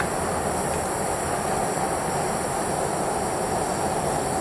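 Propane burner of a small melting furnace running with a steady roar.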